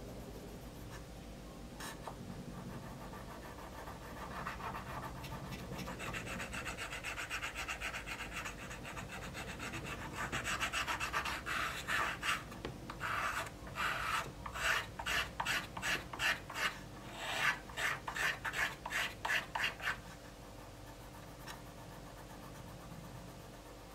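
Fine #800-grit sandpaper rubbed back and forth over a small silver piece, at first a steady scratchy rubbing, then from about ten seconds in quick distinct strokes about two a second, stopping a few seconds before the end.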